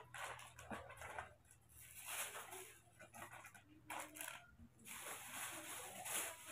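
Plastic bag and cardboard box being handled and rustled, in irregular short bursts.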